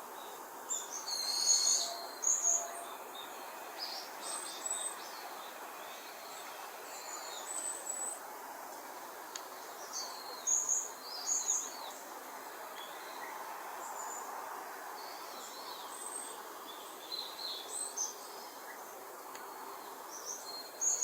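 Wild songbirds calling in short, high chirps and whistles, several birds in turn, over a steady hum of outdoor background noise. The calls come thickest about two seconds in and again around ten seconds in.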